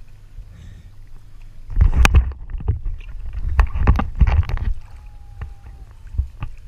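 Sea water sloshing and splashing against the camera at the surface. It comes in irregular loud gushes that begin about two seconds in as the camera bobs at the waterline.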